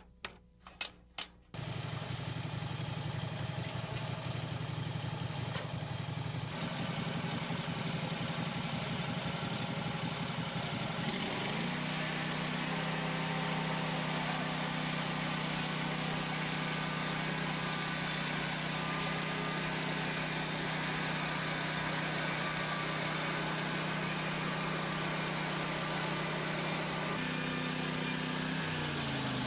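A few sharp clicks, then a small gasoline engine, most likely on a portable band sawmill, cuts in and runs steadily. About eleven seconds in it revs up to a higher, steady speed under cutting load, and it winds down near the end.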